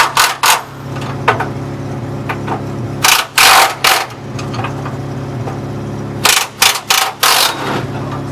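A heavy truck engine idling steadily, broken three times by clusters of short, loud hissing bursts: at the start, about three seconds in, and about six seconds in.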